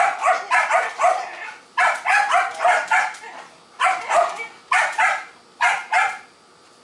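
Dog barking in quick volleys of a few barks each, falling silent a little before the end.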